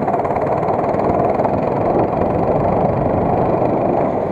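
A 5 hp minibike engine running steadily under throttle while the bike is ridden along.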